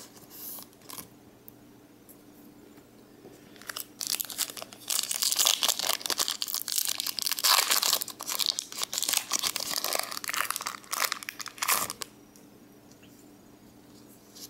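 Foil Pokémon booster pack wrapper crinkling and tearing as it is ripped open by hand. It is a loud, crackling rustle from about four seconds in until near the end, after a few faint rustles of cards being handled.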